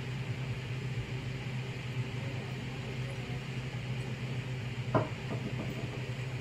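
Steady low kitchen hum, with a single sharp knock about five seconds in.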